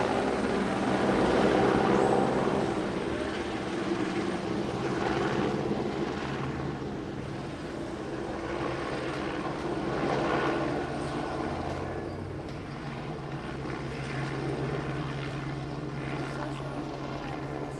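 Police helicopter in flight: a steady rotor and turbine drone that swells and fades in loudness several times.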